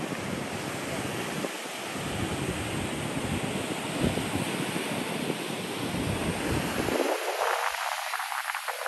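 Ocean surf under heavy wind buffeting on the microphone. About seven seconds in, the low rumble drops away suddenly, leaving a thinner hiss with crackling.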